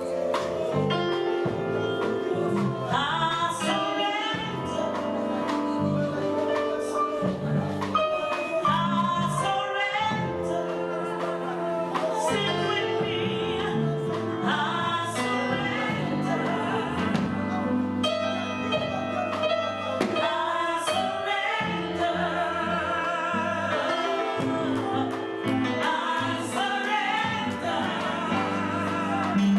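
Gospel music: singing over an instrumental accompaniment of held chords, with the voice lines wavering in vibrato.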